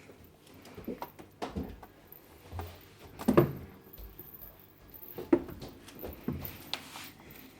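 Scattered light knocks and bumps at irregular intervals, the loudest about three seconds in.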